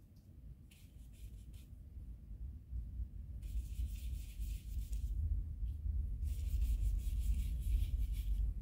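Bristle paintbrush rubbing and mixing oil paint on a paper palette: short scratchy strokes early on, then two longer stretches of brushing about halfway through and near the end. A low rumble builds underneath and grows louder.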